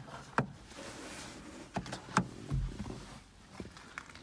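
A few sharp plastic clicks from a car sun visor's vanity mirror cover being snapped shut and open, which switches its courtesy light off and on. A soft low thump of handling comes just after the loudest click.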